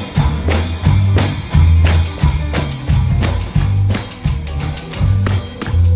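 Live gospel band playing an upbeat song: a drum kit keeps a steady driving beat, two or three strikes a second, over a heavy bass line.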